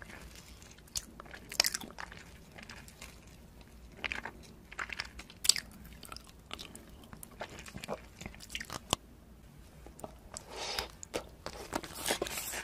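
Close-miked biting and chewing of a thin, glassy sheet of blue candy: irregular sharp crunches and crackles, with softer mouth sounds between and a denser run of crunches near the end.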